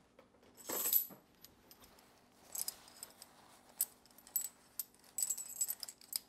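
Small metal rings and hardware clinking and jingling in the hands as light, scattered taps that begin about two and a half seconds in and grow busier towards the end. A single louder rustle comes about a second in.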